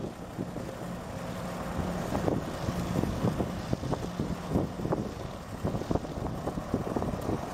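Small hovercraft's engine and ducted thrust fan running steadily as the craft skims across choppy water, heard from shore, with wind gusting on the microphone.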